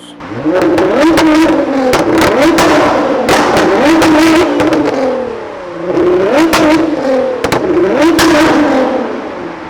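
Nissan GT-R R35's twin-turbo V6 revved hard over and over, its pitch sweeping up and falling back, in two long runs with a short lull about halfway. A string of sharp exhaust pops and bangs from a pops-and-bangs tune cracks through it like gunshots.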